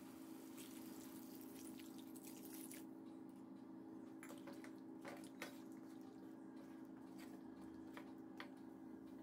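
Water being poured into a hot steel kadai of frying chicken, a faint hissing wash for the first few seconds, then scattered light clicks of a spatula stirring in the pan. A steady low hum runs underneath.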